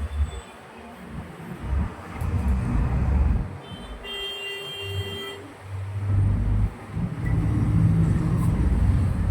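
Low, surging rumble of road traffic, with a vehicle horn sounding for about a second and a half around four seconds in.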